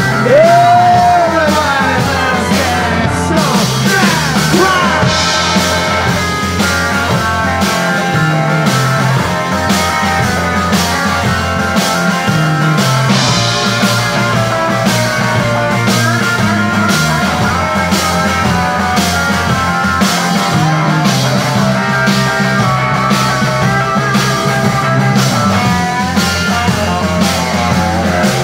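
Live rock band playing an instrumental break: electric guitar lead with bent notes over bass guitar and a steady drum beat.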